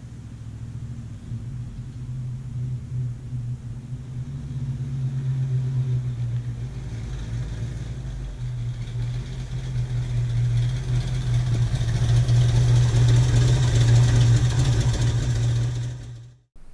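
A 1966 Ford Mustang coupe's factory V8 running as the car approaches, its steady low exhaust note growing louder as it comes closer, then cutting off suddenly near the end.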